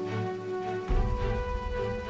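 Background music with a steady beat and held notes, a heavier low hit about a second in.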